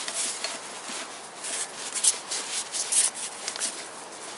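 Ratchet wrench turning out a flywheel bolt that has just broken loose, its pawl clicking in short rasping runs on the back strokes, several times and unevenly spaced.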